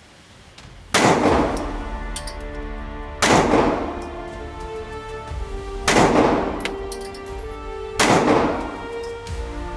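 Four 9mm pistol shots from a Taurus G3, spaced unevenly two to three seconds apart, with background music underneath.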